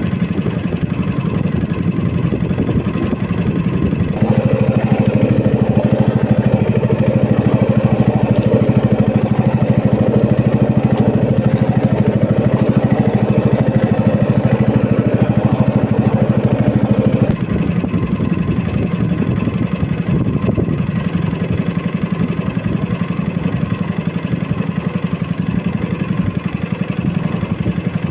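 Small fishing boat's engine running steadily. It picks up to a higher throttle about four seconds in, then eases back down after about thirteen seconds.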